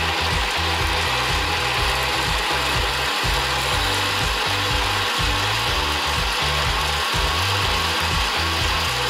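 Electric countertop blender running steadily at full speed, grinding almonds and water into a milky liquid. Background music with a bass line plays underneath.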